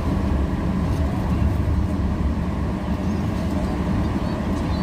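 Steady low rumble of freeway vehicle traffic, with no sudden events.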